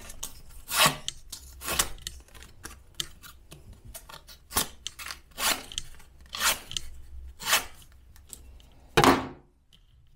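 A freshly sharpened knife slicing through a sheet of white paper or thin card in a series of short rasping cuts, about one a second, testing the edge. The last and loudest cut comes near the end, then the cutting stops.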